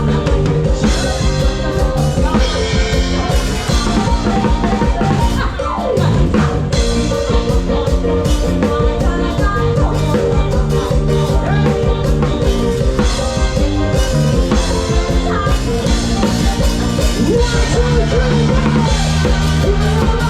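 A live band playing a song, with a drum kit keeping a steady beat under bass and other pitched instruments.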